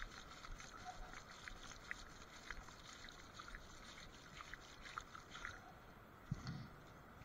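Faint, irregular clicking and crackling of wet seagrass, shells and debris from a shrimp net being picked through by hand, with one soft thump about six seconds in.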